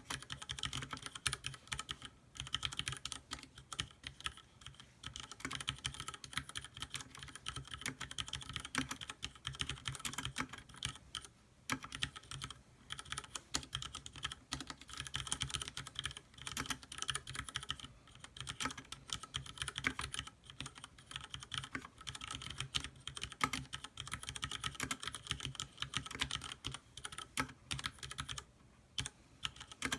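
Continuous typing on a Leopold FC660M compact mechanical keyboard with Cherry MX Red linear switches and PBT keycaps: a dense run of key clacks, broken by a few short pauses.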